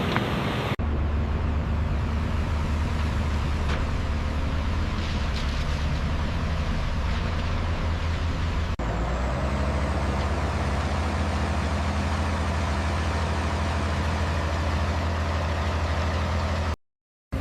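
Steady, low truck-engine drone. It changes abruptly about a second in and again about nine seconds in, and cuts out briefly near the end.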